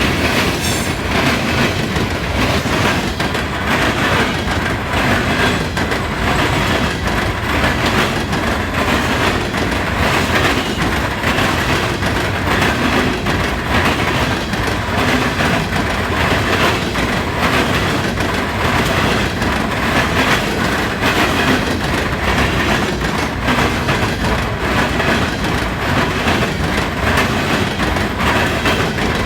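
Wheels of a fast Norfolk Southern coal train's cars hammering over the interlocking's diamond crossings: a dense, steady run of loud wheel impacts as car after car passes.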